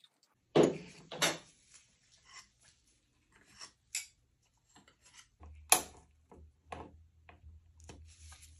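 Short hard clicks and knocks of wick holders being lifted off candle jars and handled over a wooden table. Two loud knocks come about half a second apart near the start, a sharp click a little past the middle, and lighter clicks in between.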